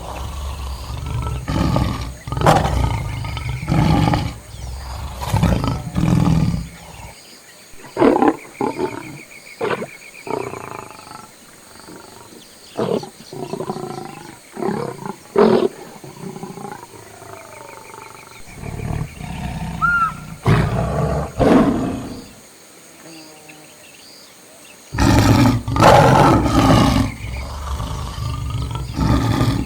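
Lion roaring and grunting in a series of deep calls: dense and loud at first, sparser and quieter through the middle, then loud and close together again in the last few seconds.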